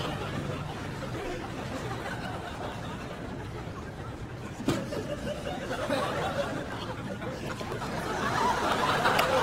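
Audience laughing off and on, swelling again near the end, with a single sharp knock about four and a half seconds in.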